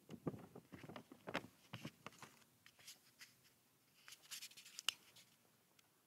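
Faint scattered clicks and scratchy rustling, handling noise close to the microphone, with one sharper click about five seconds in.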